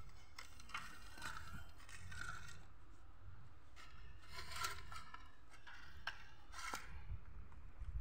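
Faint, scattered scraping and rustling, with brief louder scrapes about four and a half and just under seven seconds in; no drill motor is running.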